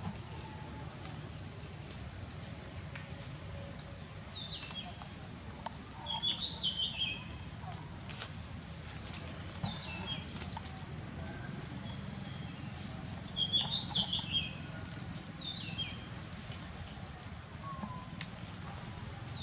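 Birds chirping: clusters of short, high, downward-sliding calls, with two louder bursts about six seconds in and again around thirteen seconds, and fainter chirps between.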